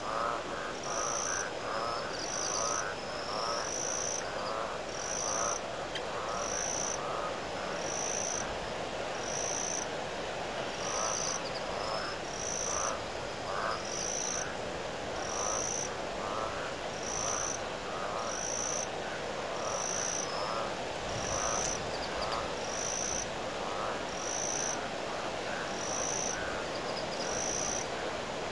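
A chorus of frogs calling in short, rapid pulsed notes, with a high chirp repeating about once a second, over a steady rush of wind.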